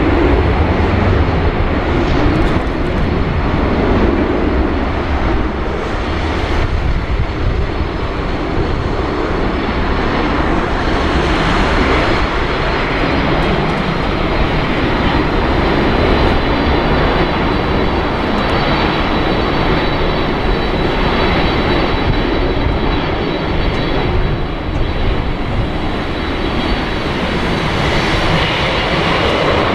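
Jet roar of an Airbus A330-300's two GE CF6-80E1 turbofans at take-off thrust as the airliner rolls down the runway, lifts off and climbs away. It is a loud, steady roar with a faint high whine running through it.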